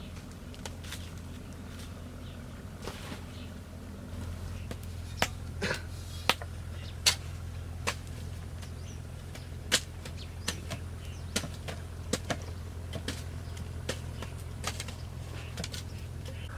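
Irregular sharp knocks and taps from hand-tool work on bamboo, starting about five seconds in and coming about one or two a second, over a steady low hum.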